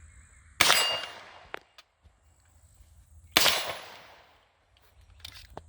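Two gunshots hitting a steel target, about three seconds apart, each a sharp crack followed by a metallic ring that fades over about a second.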